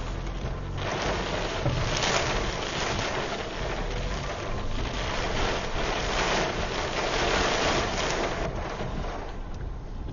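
Strong wind gusting, a loud rushing noise that swells about a second in, surges and eases in waves, and dies down near the end.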